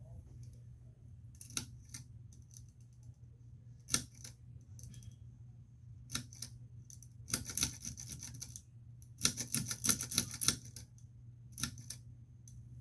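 Light, sharp clicks and rattles: single clicks here and there, and two runs of rapid clicking, about seven and about nine seconds in, over a steady low hum.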